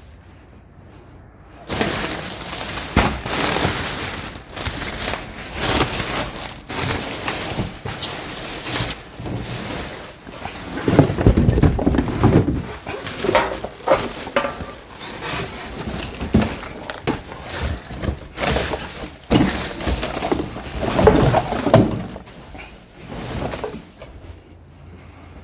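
Scrap being rummaged through and pulled out by hand: irregular clattering, knocking and crashing of loose metal and debris, starting about two seconds in, with two heavier bouts of rattling, easing off near the end.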